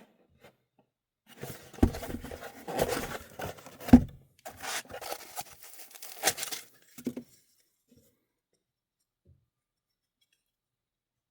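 Rubbing and scraping handling noises with a sharp knock about two seconds in and a louder one about four seconds in, stopping about seven seconds in.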